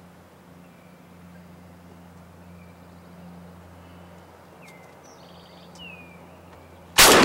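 Quiet outdoor stillness with a few faint bird chirps and a low steady hum, then, right at the end, a single sudden very loud shotgun blast.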